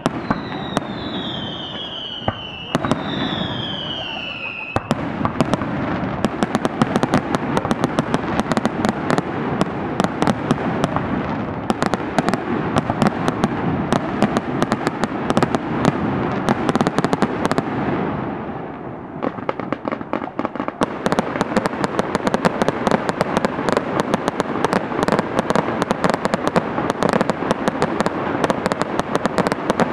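Fireworks display: two falling whistles in the first few seconds, then a dense, continuous crackling from crackle effects that eases off briefly about two-thirds of the way through and then picks up again.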